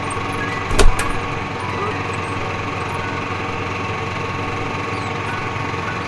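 A steady, engine-like mechanical drone running throughout, with a single sharp knock a little under a second in.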